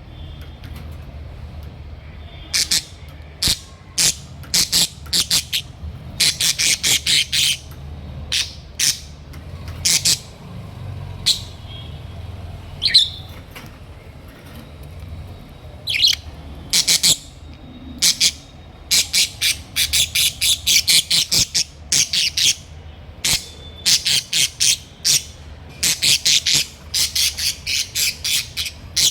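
Small pet parrots squawking loudly: short, sharp, high-pitched calls, often in quick runs of several, with brief pauses between bouts, over a faint low hum.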